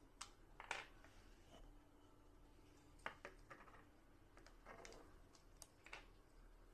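Faint clicks and light rattling of plastic Lego bricks being handled and pulled apart, a handful of separate clicks with the loudest about a second in and about three seconds in.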